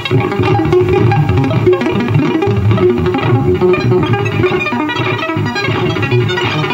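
Live music played loud: a dense, unbroken stream of quick notes over a strong low end.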